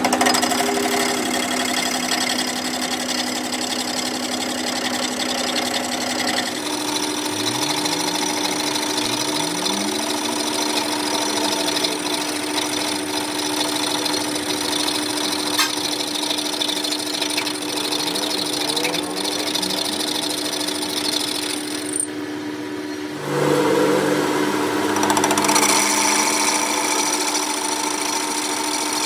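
Metal lathe running, turning a heavy steel truck wheel hub ring with a cutting tool: a steady machine hum with cutting noise. The sound changes abruptly about six seconds in and again near 23 seconds.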